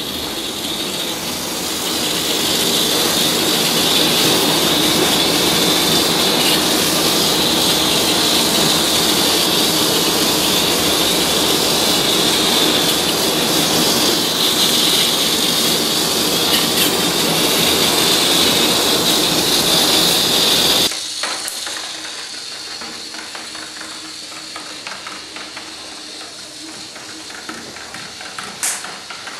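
Steady, loud hissing whir from the chain-reaction machine's moving parts. It cuts off abruptly about 21 seconds in, and quieter rattling with scattered clicks follows.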